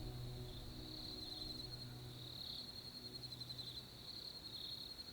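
Crickets trilling steadily, the high trill swelling and easing every half second or so, with faint low tones dying away in the first few seconds.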